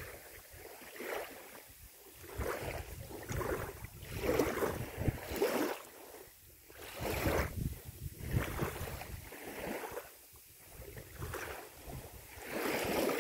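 Wind buffeting the microphone over small waves lapping at the shore, swelling and fading every second or two.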